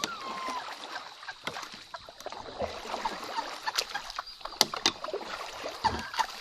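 Rowboat paddles dipping and pulling through pond water, with irregular sharp knocks and splashes from hard strokes.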